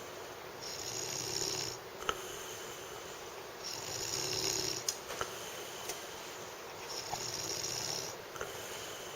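A person snoring in sleep: three snores about three seconds apart, each lasting a little over a second, with a few short clicks between them.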